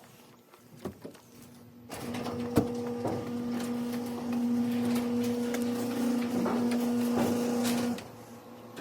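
A small electric motor runs steadily for about six seconds with a constant hum, mixed with a few clicks and rattles, then stops abruptly.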